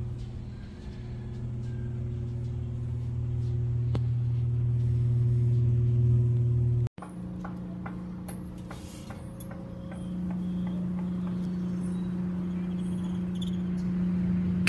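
A car driving, its steady engine and road hum swelling a little. It cuts off abruptly about seven seconds in, and a similar steady hum at a higher pitch follows.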